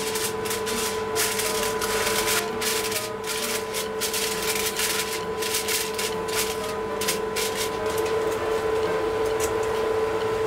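Aluminium foil crinkling and rustling in quick irregular crackles as it is pressed down around the rim of a bowl, over a steady hum. The crackling thins out in the last couple of seconds.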